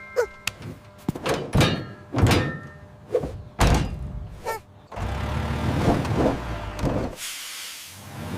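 A run of thuds and knocks mixed with short squeaky tones, then a steady rumbling noise from about five seconds in, giving way to a hiss near the end.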